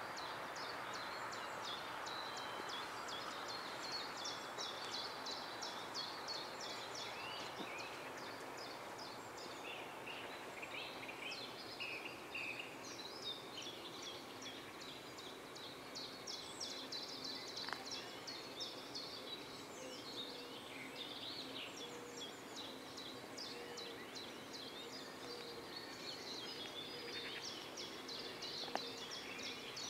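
Small songbirds chirping and singing without pause, many quick repeated notes, over a faint steady background noise.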